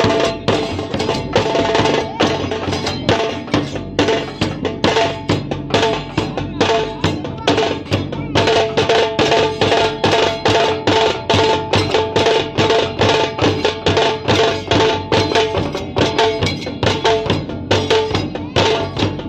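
Dhol and tasha drums beaten with sticks in a fast, steady, unbroken rhythm, the tasha's tight head ringing over the dhol's deeper strokes.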